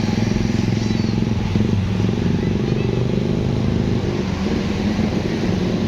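A tour bus's diesel engine running close by at a low, even speed, steady with no revving.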